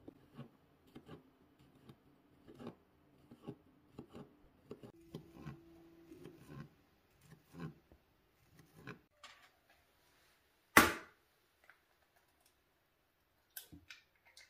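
Kitchen knife cutting through a hot dog sausage and tapping a cutting board, a run of light irregular clicks. About eleven seconds in comes a single much louder knock, then a few clicks near the end as an egg is cracked on the rim of a bowl.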